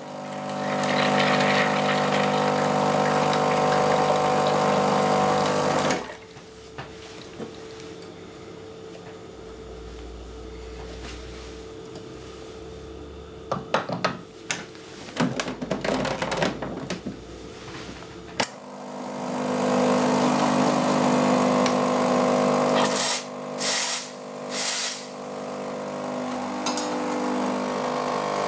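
Nuova Simonelli Oscar espresso machine's pump humming steadily for about six seconds. Then clicks and knocks of the bottomless portafilter being handled at the group head. Then the pump hums again as the shot begins, with three short bursts of noise partway through.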